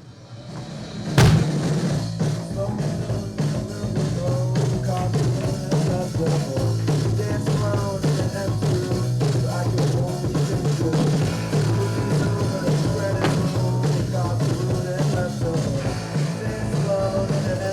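Rock band playing with drums, bass and electric guitar. It swells in and crashes in together about a second in, then keeps up a steady driving groove with a moving bass line.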